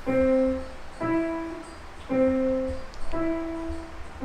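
A child practicing on a piano, playing two single notes in alternation, low then high, about one note a second, each left to ring and fade.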